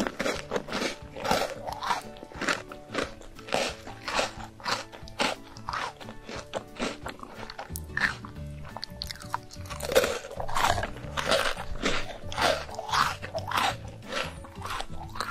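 Close-miked crunching and chewing of chocolate-topped round biscuits, in repeated crisp bites a few per second. Background music plays underneath.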